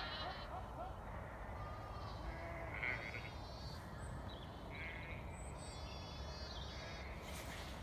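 Sheep bleating, several separate calls a second or two apart, over a low steady rumble.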